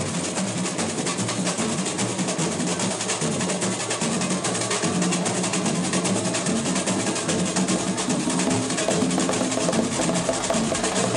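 Samba drumming: a fast, steady percussion groove of dense, quick drum strokes that does not let up.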